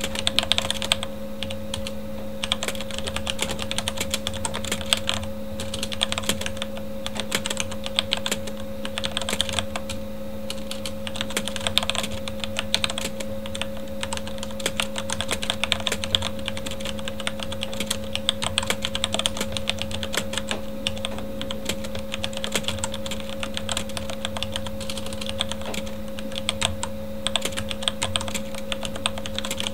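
Continuous fast typing on a Corsair K70 mechanical keyboard with Cherry MX Red linear switches: a dense stream of keystroke clicks. Under it runs a steady hum from a computer fan.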